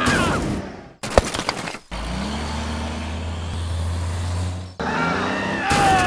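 Vehicle engine sound effect: a steady low rumble lasting about three seconds, preceded by a quick clatter of sharp knocks and followed by falling gliding tones.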